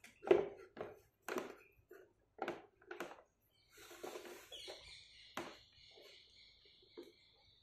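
Resin fountain parts and a figurine being handled and fitted together: a series of light knocks and taps. From about four seconds in a steady high hiss joins them.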